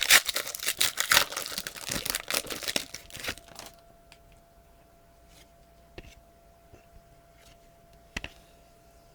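Plastic wrapper of a trading-card pack being torn open and crinkled, then a few faint clicks as the cards are handled.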